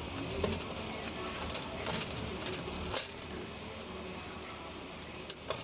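Scattered light clicks and taps of aluminum dish-rack parts being handled and fitted together, over a steady low hum.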